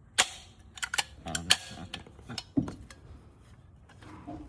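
A caulking gun being handled and loaded with a tube of silicone: a series of sharp clicks and clacks, several close together in the first three seconds.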